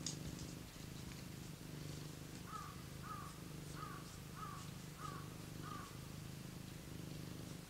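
Domestic cat purring steadily in slow cycles. Partway through, a run of six short, evenly spaced calls sounds over the purr.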